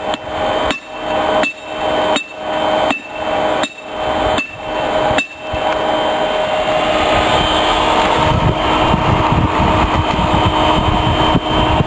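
Hand hammer striking metal on an anvil, about eight evenly spaced blows, roughly one every 0.7 s, that stop about five seconds in. A steady motor hum runs underneath and carries on alone, growing louder and rougher, after the hammering stops.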